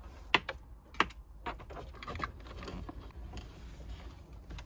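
Small plastic clicks and rustling from a reverse camera's coiled cable and its RCA plug being handled and uncoiled. Two sharp clicks in the first second are the loudest, and lighter ticks and rustles follow.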